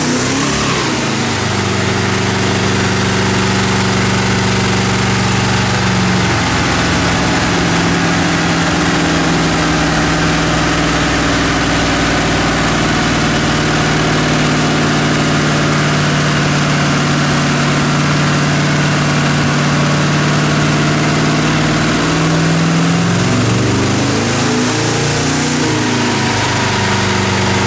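Twin-turbo 5.3-litre LS V8 in a Chevy S10 running under load on a chassis dyno. Its engine note holds fairly steady, steps down in pitch about six seconds in, then climbs slowly. Near the end the pitch sweeps and falls as the engine comes back down.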